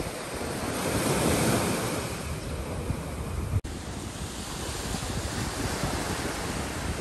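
Small waves washing up on a sandy beach, with wind rumbling on the microphone. The surf swells about a second in, and there is a momentary break about halfway through.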